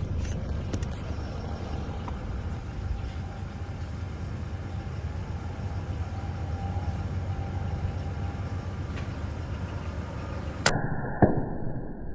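Steady low rumble and hiss, then two sharp cracks about half a second apart near the end.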